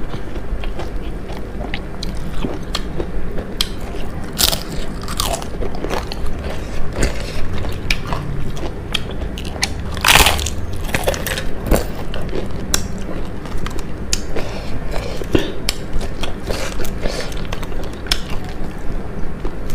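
A person chewing and biting into crunchy food close to the microphone, with irregular sharp crunches throughout and the loudest crunch about halfway through.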